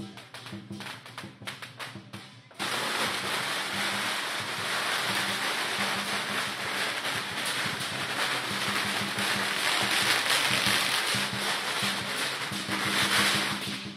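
Lion-dance drum and cymbal beating, then about two and a half seconds in a string of firecrackers starts crackling densely and keeps going over the drumming, stopping near the end.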